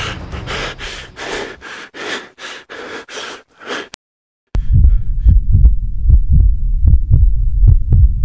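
Quick running footsteps on a dirt path, about three a second, for roughly four seconds. After a moment of silence, a fast, deep thudding heartbeat sound effect follows.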